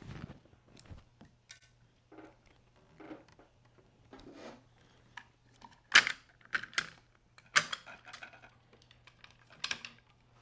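Small clicks and snaps of pliers, string and stringing-machine parts while a racquet string's tie-off knot is pulled tight. It starts as soft rustling of string and hands; from about six seconds in come sharp irregular clicks, the loudest about six and seven and a half seconds in.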